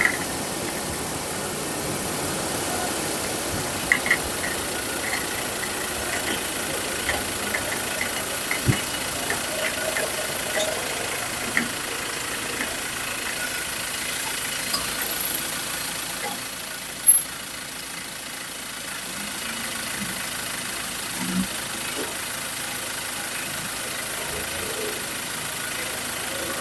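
Ford Ranger pickup running, a steady vehicle noise with light scattered clicks and one sharper click about 17 seconds in. This is the small suspension noise, not a heavy knock, that the mechanic traces to a worn, seized sway bar link.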